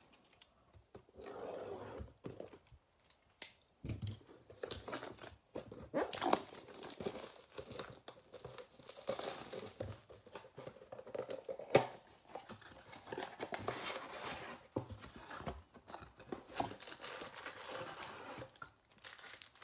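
Plastic shrink-wrap being torn off a cardboard trading-card box and crinkled, then the box's cardboard flaps being pried open, in irregular rustles and crackles with one sharp snap about twelve seconds in.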